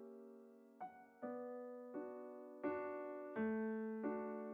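Background music: slow piano chords, each struck and left to fade, about one every three-quarters of a second.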